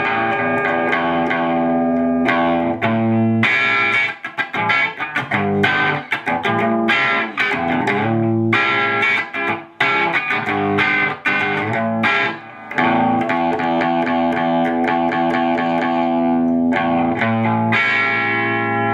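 Overdriven electric guitar played through a TS-9 Tube Screamer–style overdrive pedal into a 50-watt valve amplifier: sustained chords and short riffs with brief pauses between phrases. The pedal's output level is turned up a bit, pushing the amp into more of its own overdrive.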